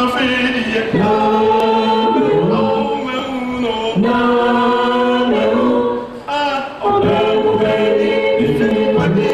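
Voices singing together, a choir-like chant of long held notes, with a short break about six seconds in.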